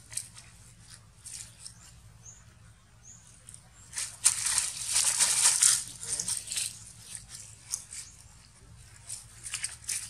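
Dry leaf litter rustling and crunching in uneven bursts, loudest for a couple of seconds around the middle. There are two faint short high chirps a few seconds in.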